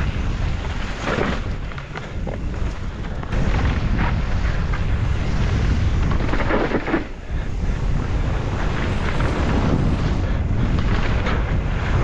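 Wind buffeting the microphone and knobby Schwalbe tyres rumbling and crunching over a dirt trail on a fast enduro mountain-bike descent, with the bike rattling over bumps. The noise eases briefly about seven seconds in.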